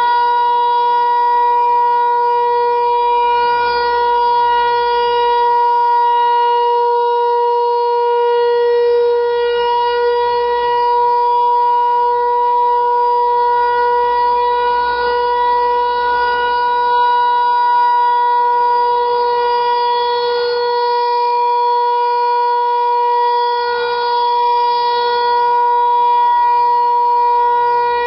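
Federal Signal Equinox tornado siren sounding a loud, steady tone at a fixed pitch during a test activation, with only slight swells in level.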